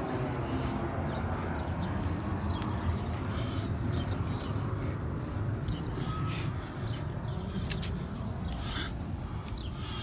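A soapy sponge wiping over a wet car's door and rear wheel arch, with scattered light ticks over a steady low rumble.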